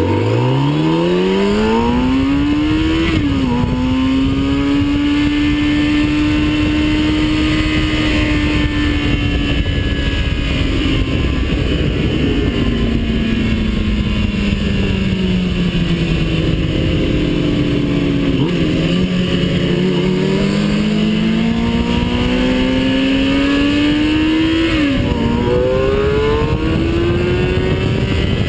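Engine of a vehicle at track pace, heard onboard over steady wind and road rush. It revs up hard and shifts up about three seconds in, then pulls on steadily. The revs fall away for several seconds through a slower stretch, build again, and it shifts up once more near the end before climbing again.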